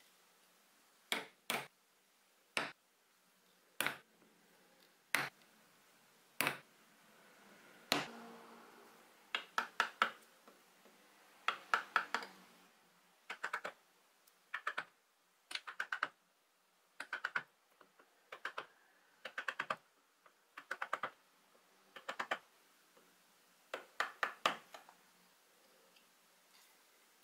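A hammer tapping a bench chisel into a Taiwan cypress board, chopping along the marked lines of a dovetail joint. The taps are sharp and light, some single and some in quick runs of two to four, with short pauses between them.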